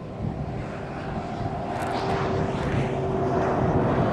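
Steady road and engine noise of a moving car, heard from inside the cabin, with a low hum that gets louder toward the end.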